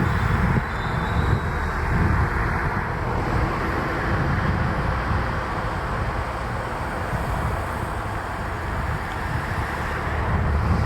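JR Shikoku KiHa 40-series diesel railcar under way, heard from inside: a steady diesel engine drone with wheel-and-rail rumble and running noise.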